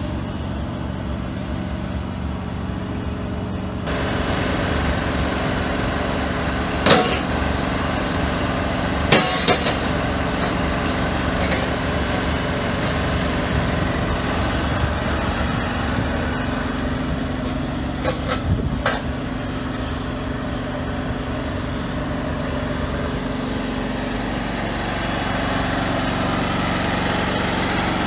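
Engine on a thermoplastic road-marking truck running steadily at idle, a little louder from about four seconds in. A few sharp knocks stand out over it: one about seven seconds in, two around nine seconds, and a quick cluster around eighteen seconds.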